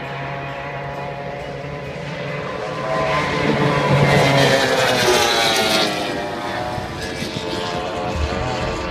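Racing powerboat's outboard engine running at high speed as the boat passes by, loudest about three to six seconds in, its pitch falling as it goes past.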